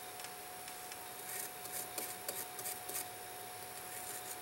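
Faint, quick scraping and rubbing of a small hand tool against a tiny steel watch part held in tweezers, as rust is worked off it; the scratches come in short clusters, mostly in the middle, over a thin steady whine.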